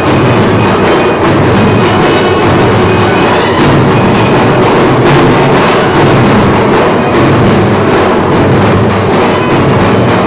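Loud music with steady drumming, running without a break.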